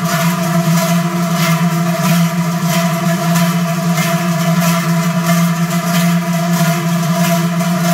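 A massed column of large Swiss cowbells (Trycheln) rung together in step, a dense, loud clanging that merges into a steady ringing drone pulsing in an even rhythm.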